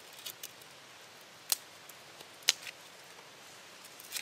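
Sharp clicks from a small metal hand tool being worked in the hands. Two loud clicks come about a second apart, with a few lighter ones around them.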